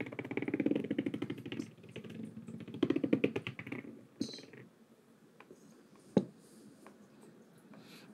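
Red toy ball rattling rapidly as it rolls across a hardwood floor, in two spells: about two seconds at first, then about a second more, followed by a single sharp knock about six seconds in.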